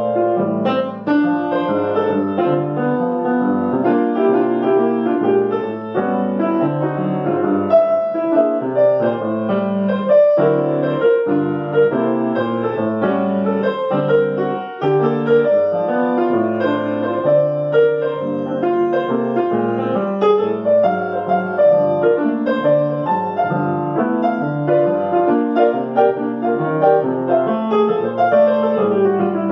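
Grand piano played solo: a steady, unbroken stream of notes.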